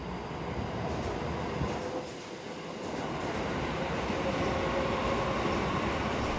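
Train running on the rails: a steady rumble of wheels and carriage noise, with a faint steady whine coming in partway through.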